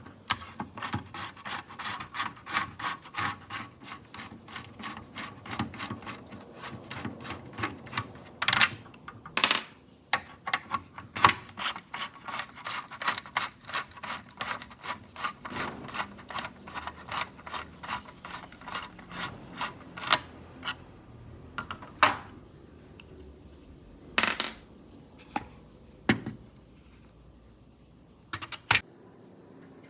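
Quick, repeated scrubbing strokes on a hard surface for about twenty seconds, then a handful of separate sharp knocks.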